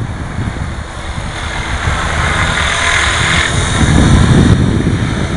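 Radio-controlled helicopter's motor and main rotor whining as it comes down to land, growing louder as it nears; it settles onto the grass about four seconds in, where rotor wash adds a low rumble.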